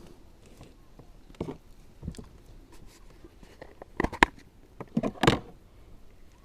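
A few short knocks and clatters of handling in a small fishing boat: single knocks in the first two seconds, then louder clusters of knocks about four and five seconds in.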